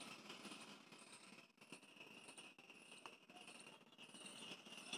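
Near silence: faint background room tone, with a soft high steady hiss and faint high chirps repeating about twice a second.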